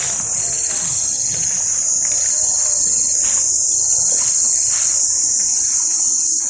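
Insects droning loudly and steadily at a high pitch, with a second, lower trill that comes and goes in stretches about a second long.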